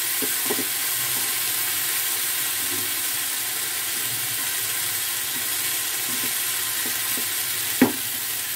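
Diced potato and pointed gourd sizzling steadily in oil in a frying pan over a low flame, stirred and scraped with a wooden spatula. A single sharp knock of the spatula against the pan comes near the end.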